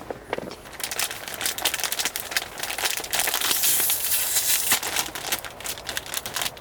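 Irregular crinkling and crackling, a dense run of sharp little clicks that starts about a second in, like something thin and crisp being handled or crumpled.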